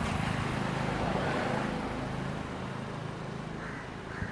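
A motor vehicle passing close by: engine hum and road noise swell suddenly at the start, then fade away over the next few seconds.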